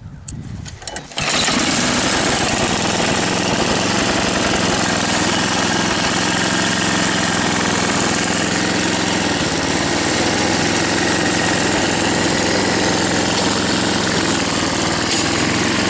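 1978 Mastercraft snowblower's 10-horsepower engine starting: it catches about a second in, after a few clicks, then runs steadily.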